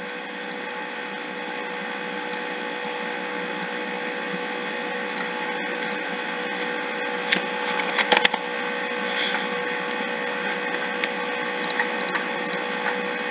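Steady electrical hum and hiss from the recording setup, with a few sharp clicks: a cluster about seven to eight seconds in and single ones near the end.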